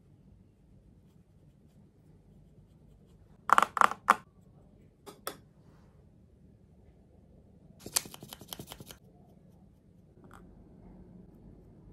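A series of sharp clicks over quiet room hiss: three loud ones about three and a half seconds in, two lighter ones a second later, then a quick run of about ten clicks near eight seconds.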